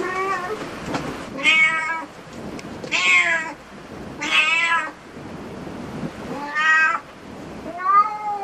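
A domestic cat meowing over and over, about five calls roughly a second and a half apart, each about half a second long and rising then falling in pitch.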